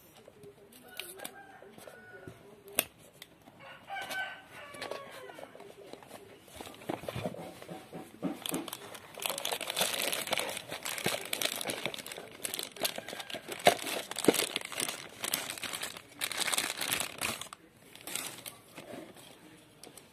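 Plastic packaging bag crinkling and rustling as a CCTV bullet camera is pulled out of its box and unwrapped, loudest in the middle of the stretch. A few short pitched calls sound in the first few seconds.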